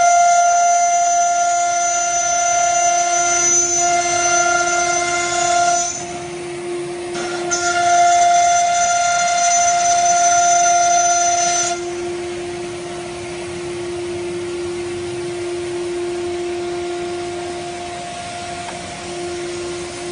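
ATC CNC router running: a steady high spindle whine with a second, higher whine and its overtones over it. The higher whine drops out about six seconds in, returns a moment later, and stops about twelve seconds in, leaving the steady whine and a hiss.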